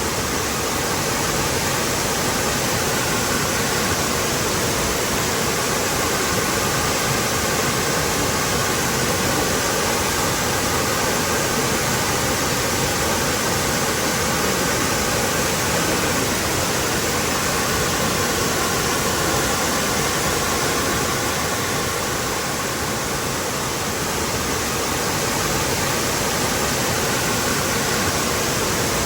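Waterfall: falling water rushing steadily, an even unbroken hiss.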